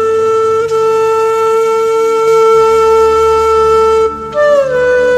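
Background music: a wind-instrument melody of long held notes over a softer low accompaniment. The sound dips briefly about four seconds in, and a new note then slides down.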